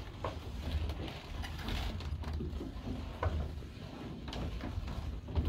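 Wooden running gear of a windmill turning: a lantern pinion meshing with a wooden cog wheel, a steady low rumble with irregular knocks and creaks as the teeth engage. The mill is running without grinding.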